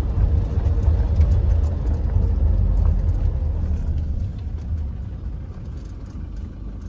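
Road and engine rumble of a moving car heard from inside its cabin, deep and steady, easing off gradually over the last few seconds.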